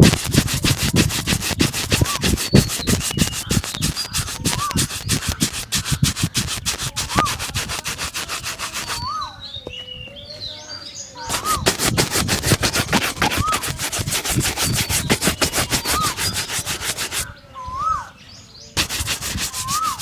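A leather shoe being buffed with quick, steady rubbing strokes, stopping twice, at about nine seconds and about seventeen seconds, before starting again. A short rising-and-falling chirp repeats every second or so over the rubbing.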